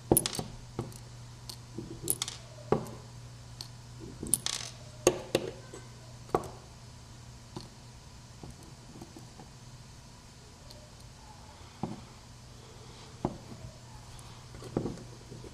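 Small metal lock pins and springs clicking and clinking as they are tipped out and set down on a hard surface: a run of quick ticks in the first half, then only a few scattered clicks.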